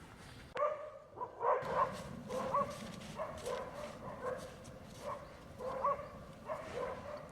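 An animal giving a rapid series of short, pitched calls, roughly two a second, starting about half a second in.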